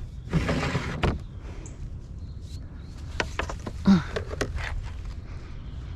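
A wooden board being picked up and handled: a short scraping rush, then a few knocks and clicks.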